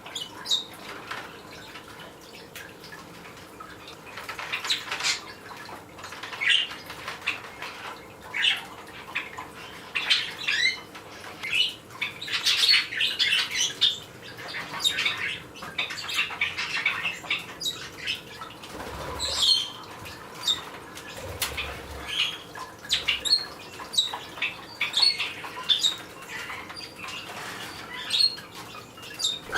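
Small parrots chirping and calling in short, irregular notes, with bursts of wings flapping as they come and go.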